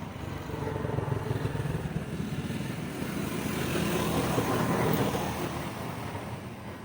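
A motor vehicle's engine passing by, growing louder over the first few seconds, peaking about four to five seconds in, then fading.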